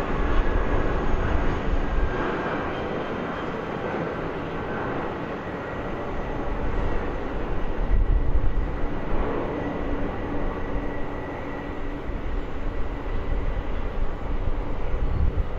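Jet engines of a taxiing Boeing 747: a steady rumble and hiss with a faint steady whine on top, swelling a little about halfway through.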